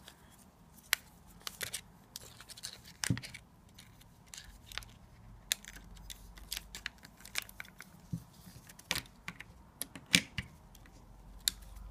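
Irregular small clicks and taps as a 35 mm film cassette is seated in the open back of a Zenit-19 SLR and its film leader is pulled across the camera body, with a couple of duller knocks among them.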